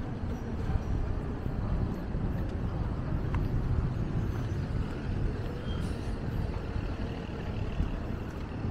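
Steady, low rumbling outdoor background noise that rises and falls in level, with no single distinct event standing out.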